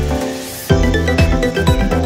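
Electronic background music with a steady beat. The beat drops out briefly and a rising swoosh leads back into it just under a second in.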